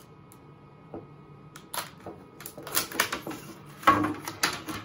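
Hard plastic CGC comic slab being pulled apart by hand: a string of sharp plastic clacks and rustles, loudest about four seconds in.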